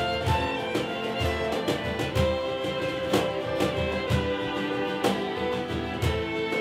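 Live acoustic folk ensemble playing: acoustic guitars strummed on a steady beat of about two strokes a second, with several violins holding long notes over them.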